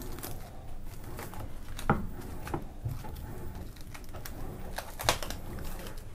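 A few sharp knocks of kitchenware being handled, the loudest about two seconds in and another about five seconds in, over a low steady background.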